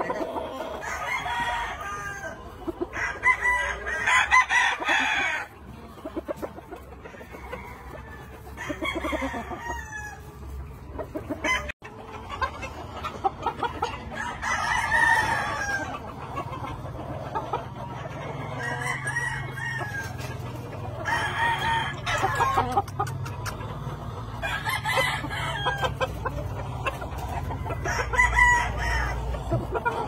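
Gamefowl roosters crowing in turn, one long crow every few seconds, with some clucking between.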